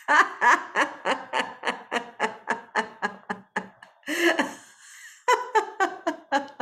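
A person laughing a deliberate laughter-yoga 'lion laugh', mouth wide and tongue out: quick staccato 'ha-ha-ha' pulses, about four a second, in two runs broken by a short pause about four seconds in.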